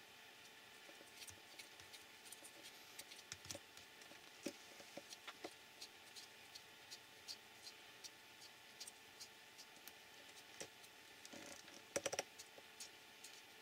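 Light scattered clicks and taps of steel pliers and small RC shock-absorber parts being handled, with a brief cluster of louder clicks about twelve seconds in.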